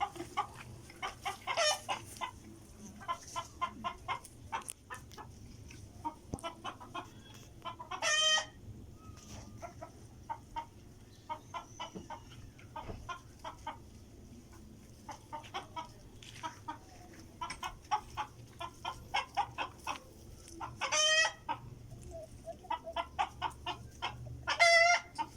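Chickens clucking in quick runs of short calls, broken by a few louder, drawn-out squawks, about 8 s and 21 s in and again near the end.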